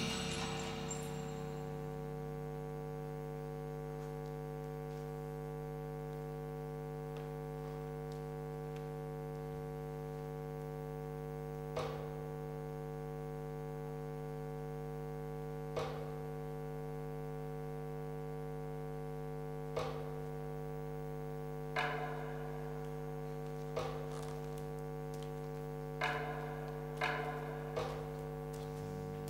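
Steady low buzzing hum that holds unchanged, with a sharp short knock every few seconds from about twelve seconds in, coming closer together near the end.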